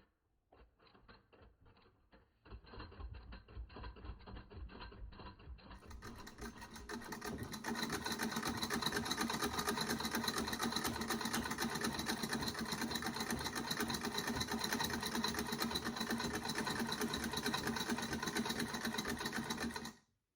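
1899 Singer treadle sewing machine stitching on its first run after restoration. A few slow, separate clicks as the treadle gets it turning build into a quickening clatter. It settles into steady fast stitching for about twelve seconds and then stops abruptly near the end.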